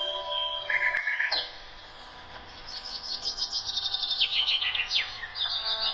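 A songbird chirping in rapid high trills and quick falling notes. Before that, a held musical chord dies away about a second in.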